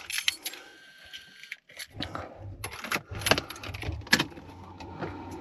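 A bunch of keys jangling, with scattered clicks and light knocks, as car keys are handled.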